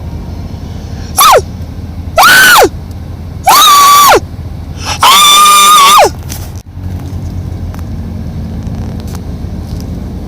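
An animal's calls, four times in a row and each longer than the last: loud, high-pitched cries that hold their pitch and then slide sharply down at the end. A steady low hum runs underneath.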